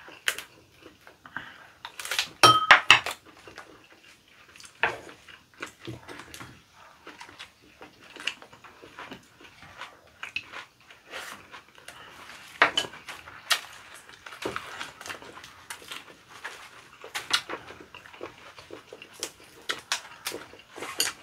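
Eating sounds of a lettuce-wrap meal: chewing and mouth noises with spoons tapping and scraping against ceramic bowls and an earthenware pot, in scattered clicks and knocks. A brief ringing clink of a dish comes a couple of seconds in.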